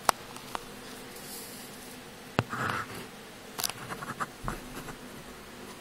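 Handling noise: a few sharp clicks and knocks, the loudest just after the start and about two and a half seconds in, with a brief rustle and a cluster of smaller clicks a little later.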